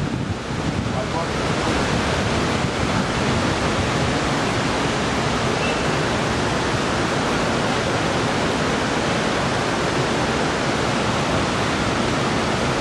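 Steady rushing noise, even and unbroken, a little louder after the first second or two.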